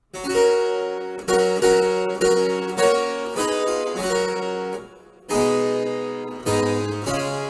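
Instrumental hymn introduction on a keyboard instrument: a series of struck chords that ring and fade, with a short break about five seconds in before the playing picks up again.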